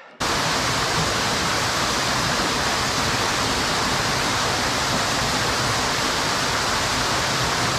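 Small waterfall pouring into a rock pool: a steady, even rush of falling water that cuts in abruptly just after the start.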